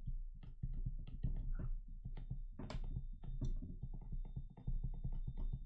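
Pen stylus tapping and scratching on a tablet as handwriting is written: an irregular run of light, quick taps, several a second, over a low steady hum.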